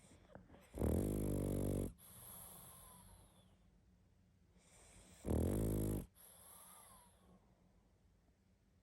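Sleeping pug snoring heavily: two loud, buzzing snores, about a second in and again past the middle, each lasting about a second, with quieter breathing between them. Heavy snoring of this kind is typical of a pug's short, flat-faced airway.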